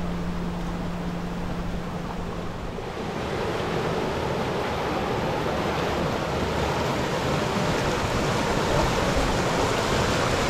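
Creek water rushing over granite rocks in a small cascade into a clear pool, a steady splashing rush that grows louder and brighter about three seconds in.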